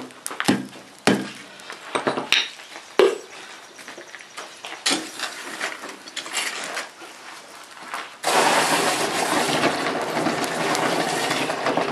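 A hammer and an iron rod knock and clink against a hot iron bloom in a charcoal bed, several sharp separate strikes. About eight seconds in, a loud steady hiss begins as the bloom is quenched, held in tongs in a bucket of water.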